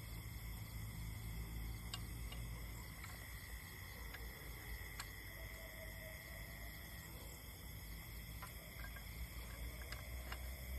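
Night field ambience: insects chirring steadily, over a low steady rumble, with scattered faint clicks.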